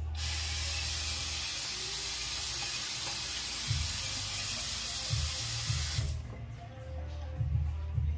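Bathroom sink tap running in a full, steady hiss, turned on at the start and shut off abruptly about six seconds in, likely wetting a toothbrush. Music with a thumping bass line plays underneath.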